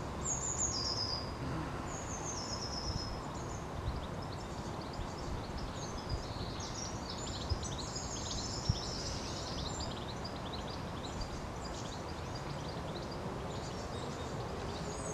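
Woodland birds chirping and trilling in short high phrases over a steady outdoor background noise, the birdsong busiest in the middle. Two faint sharp ticks come a little past the halfway point.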